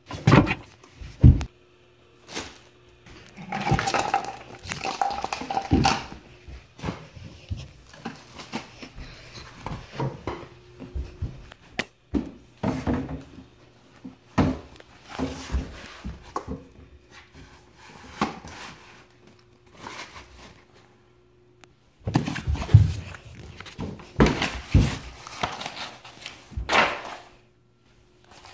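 Irregular knocks, thuds and rustling from objects being handled and moved about, with a short lull about three quarters of the way through before a busy run of knocks.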